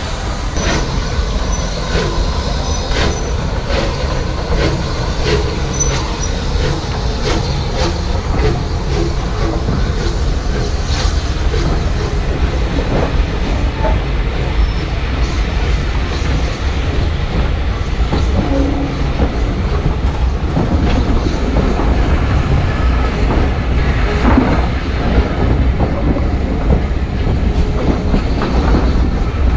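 Southern Railway Bulleid Battle of Britain class steam locomotive 34072 257 Squadron pulling its train out of the station, its coaches rolling past with a steady low rumble and repeated clicks over the rail joints.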